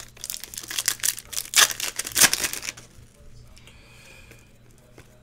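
Foil wrapper of a 2018 Panini Prizm football trading-card pack being torn open and crinkled by hand, a run of rustling tears that lasts about three seconds, the loudest near the end, then dies away.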